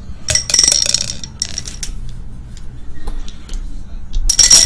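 Dice rattling and clattering on a hard surface in three bursts, the longest about a second long, the loudest near the end, with a few small clicks between.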